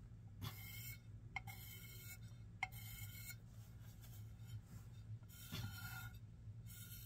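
Faint scratching strokes of a water-dipped underglaze pencil drawn across a bisqueware plate, in several short passes, with a couple of light clicks about a second and a half and two and a half seconds in.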